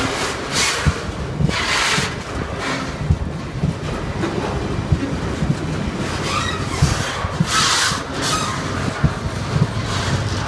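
Tank wagons of a freight train rolling slowly past close by: wheels knocking over rail joints, with stretches of hissing, squealing wheel and rail noise. Right at the end a low steady engine drone begins as the locomotives approach.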